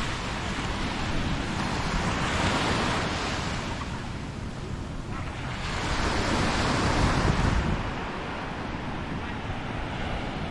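Sea waves breaking and washing up a beach, swelling twice about four seconds apart, with a steady low rumble of wind on the microphone.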